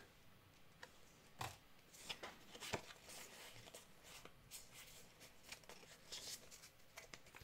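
Faint, scattered clicks and rustles of Pokémon trading cards being handled and slid against one another.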